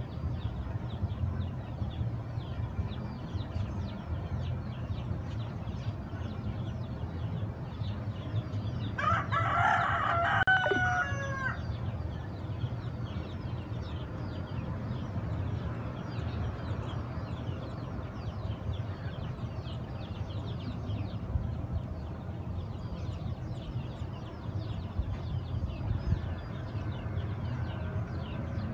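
A rooster crows once, about nine seconds in: one stepped call that falls away at the end. Under it there is a steady low rumble and faint, scattered high chirping.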